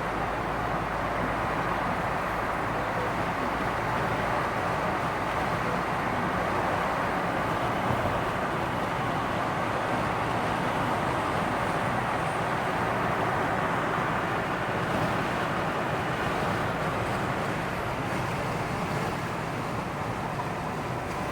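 Steady road-vehicle noise, an even rushing rumble with no distinct events.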